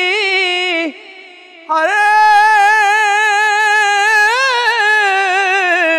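A man singing a Punjabi Sufi kalam unaccompanied, holding long, high notes ornamented with quick wavers. He breaks off about a second in, then comes back in with a long held note.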